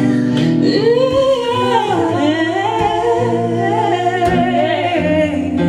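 Song with a wordless sung vocal line. Layered voices glide up and down over a backing track with steady bass notes.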